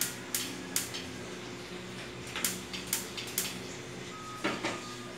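Gas stove igniter clicking as a burner is lit: short runs of sharp clicks about two to three a second, with pauses between the runs.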